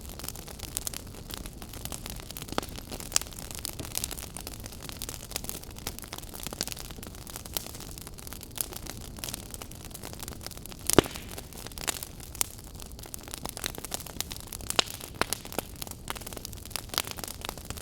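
Wood campfire crackling: irregular sharp pops and snaps over a steady low rush of burning, with one louder pop about eleven seconds in.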